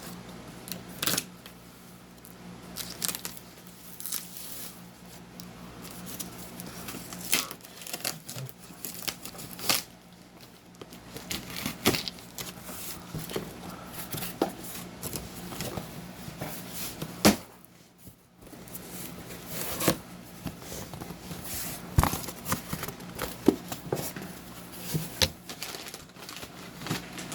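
Packaging and paper being handled while a box of comic books is unpacked: irregular rustling, crinkling and tearing, with scattered taps and clicks.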